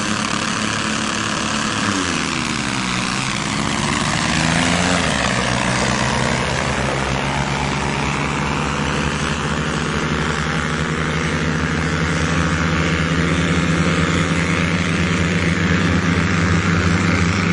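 Tractor diesel engines running hard at full throttle in a drag race, a steady drone with a dip and rise in pitch about two to four seconds in.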